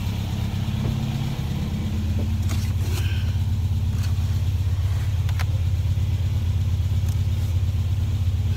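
A vehicle engine idling steadily, a low even hum, with a few light clicks and taps over it.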